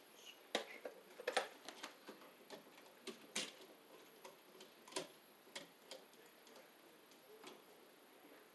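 Irregular small clicks and taps of copper wires and connectors being handled and bent at a plastic wall outlet box, the sharpest coming about a second and a half and three and a half seconds in.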